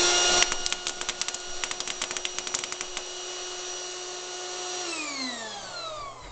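Electric air-mattress pump running with a steady whine, powering a homemade airsoft machine gun. From about half a second to three seconds in comes a rapid, irregular clatter of airsoft pellets being blown out of the barrel in a burst. About five seconds in, the pump is switched off and its whine winds down.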